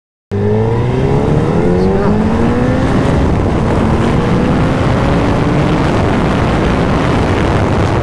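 Suzuki Hayabusa's inline-four engine cutting in about a quarter second in, its pitch rising steadily for about five seconds as the bike accelerates, then holding. Heavy wind rush runs throughout, over a helmet with no neck skirt fitted.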